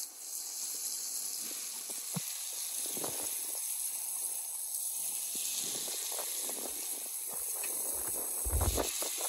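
A steady outdoor hiss, with a short low rumble about eight and a half seconds in.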